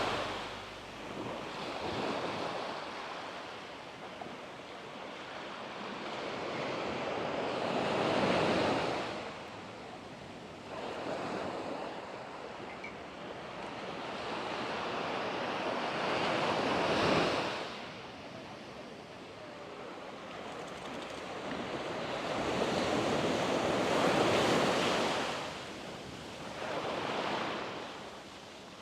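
Sea waves breaking and washing up the shore, the surf rising and falling in long surges several seconds apart, the loudest about 8, 17 and 24 seconds in.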